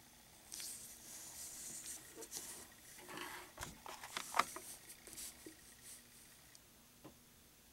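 Faint scratching and rustling of a black ink pen and hands moving over drawing paper, with a few small knocks, the sharpest a little past the middle.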